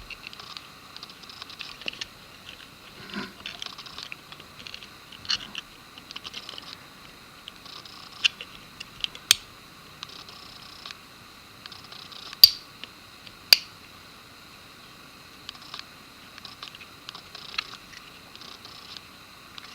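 Light scraping and ticking of small gun parts being worked by hand, with four sharp clicks through the middle: an extended magazine release lever being pushed into a Glock 17 Gen 3 frame while its spring is held out of the way.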